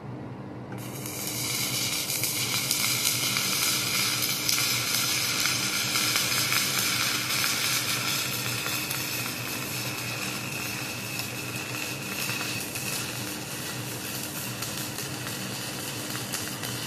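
Stick-welding arc from an E6013 electrode on a bar. It strikes up less than a second in, then gives a steady crackling sizzle while the bead is run.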